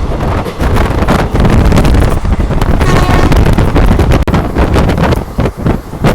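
Wind buffeting the microphone over the rumble of a moving passenger train, loud and gusting unevenly.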